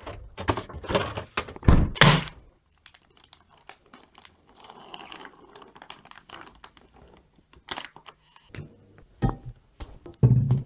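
Knocks and thumps from things being handled in a kitchen, then the crinkle of a plastic resealable packet of sliced ham being peeled open, and more loud thumps near the end.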